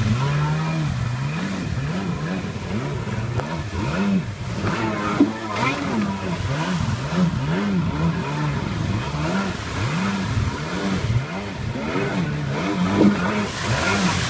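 Stand-up jet ski engine revving up and down about once a second as the rider blips the throttle through repeated tight turns, with the hiss and splash of water spray.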